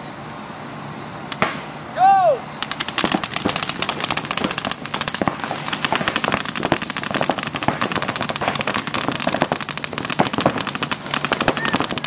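Paintball markers firing rapid strings from several players at once: a dense, continuous patter of sharp pops that starts about two and a half seconds in, as the point breaks out. Just before it, a brief falling tone sounds.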